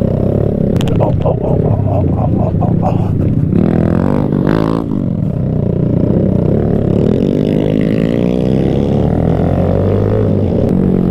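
Kawasaki Z125 minibike's single-cylinder engine running under way on a dirt trail, its note rising and falling as the throttle is opened and closed. A quick run of knocks comes about a second in.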